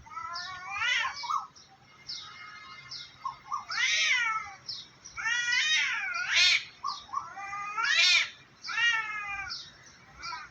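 Two cats yowling at each other in a standoff, a run of about six long, wavering, drawn-out calls one after another: threat calls, with no fight yet.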